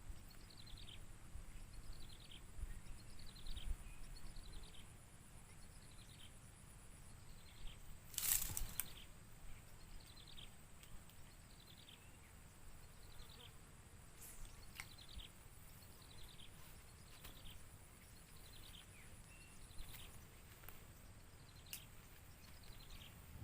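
Quiet outdoor ambience: a small animal's short falling chirp, repeated steadily a little more than once a second, over a faint steady high-pitched whine. One louder brief noise about 8 seconds in, and a few sharp clicks later on.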